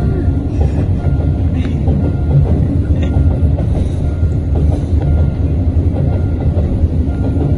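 Container freight train rolling past at close range: a loud, steady rumble of the wagons and their wheels on the rails.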